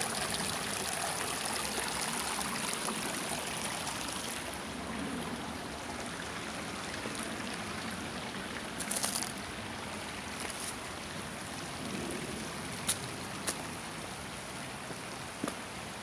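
Shallow creek water running and trickling over flat rock slabs, a steady rushing hiss, a little louder in the first few seconds. A few brief soft clicks in the second half.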